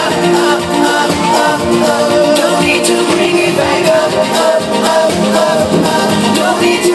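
Live electronic pop music played loud over a concert PA, with a male singer's vocal.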